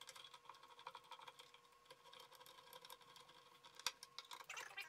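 Near silence with faint small clicks and light handling noise from a metal drawer pull being fitted to a plywood drawer front. There is one sharper click about four seconds in, and a short scrape just before the end.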